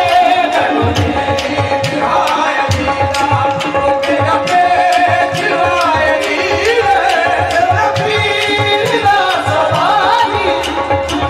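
Live qawwali: a lead male singer's voice over held harmonium notes, with a hand-drum beat and steady rhythmic hand claps from the group.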